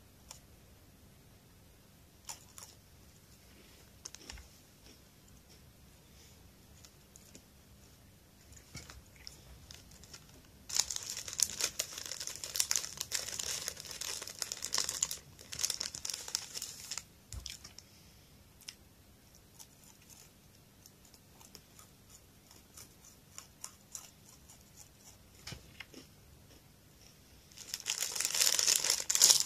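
Plastic snack wrapper crinkling and rustling as it is handled and worked open by hand, in two spells: a long one starting about a third of the way in and another near the end. A few faint clicks come before it.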